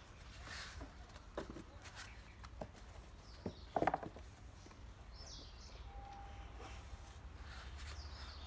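Faint background noise with a steady low hum, broken by a few scattered clicks and knocks, the loudest about four seconds in. A couple of short, faint high chirps come in between.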